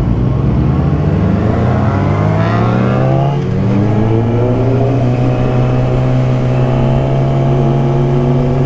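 Yamaha R6 sport motorcycle's inline-four engine accelerating. Its pitch rises, drops sharply at an upshift about three and a half seconds in, then climbs steadily again in the next gear.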